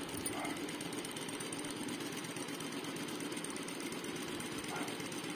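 Jack F4 direct-drive industrial lockstitch sewing machine running steadily at its low speed setting, the needle stitching through fabric in a fast, even rhythm.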